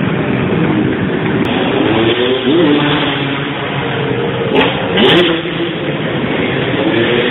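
Motorcycle engine running and revving over a steady, loud background din.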